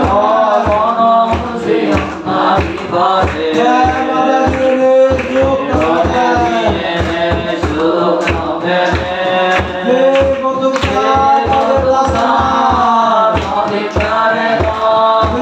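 Worship song sung into microphones and played through a PA loudspeaker, a melody with voices over a steady low beat of about three thumps a second.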